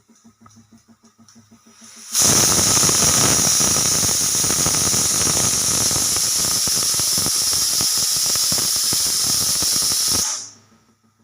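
Pressure cooker whistle blowing: a sudden loud, shrill hissing whistle of steam escaping past the weighted valve, starting about two seconds in, holding steady for about eight seconds, then cutting off quickly. It is the sign that the cooker has reached full pressure. Faint rapid pulsing is heard before it.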